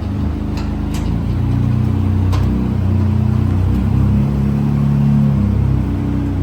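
Jeep Wrangler engine running at low revs under load as it crawls an off-road obstacle, its pitch rising and falling with the throttle. There are a few sharp knocks in the first few seconds.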